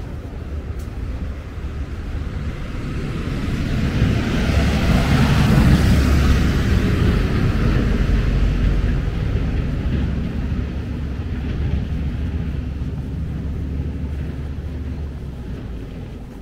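A passing vehicle: a rushing noise that swells to a peak about five or six seconds in, then slowly fades away.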